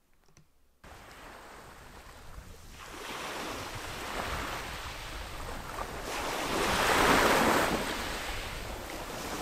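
Sea waves breaking and washing in around shoreline rocks. The sound cuts in suddenly about a second in, grows louder, swells to a surge around seven seconds, then eases back.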